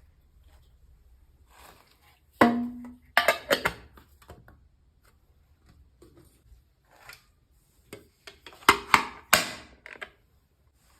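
Handling noises of small toy parts and packaging: two clusters of sharp clacks and knocks, one about two and a half seconds in with a short low note, the other near the end, with quiet between.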